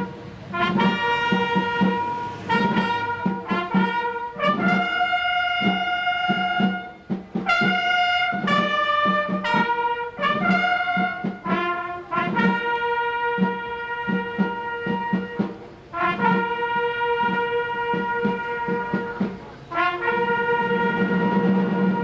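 Firefighters' brass band playing slow ceremonial music: held trumpet and trombone notes over a regular low pulse.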